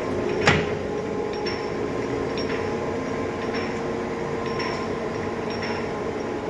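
1982 Kuraki LC1230 hollow-spindle engine lathe running under power: a steady machine hum with a light tick repeating about once a second. A single sharp knock sounds about half a second in.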